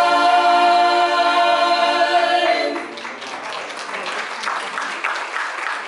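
Mixed male and female vocal quartet holding the final chord of a gospel song, which ends about two and a half seconds in; audience applause follows.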